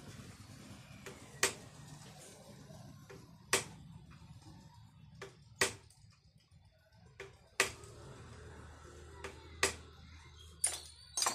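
Motorcycle shock absorber's damper rod being pumped up and down by hand, giving sharp metallic clicks about every two seconds, with fainter ones between and a quick cluster near the end.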